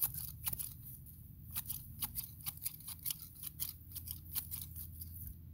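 Hand-held garden shears snipping through grass and weeds: a run of crisp snips, sparse at first, then about three a second from about a second and a half in.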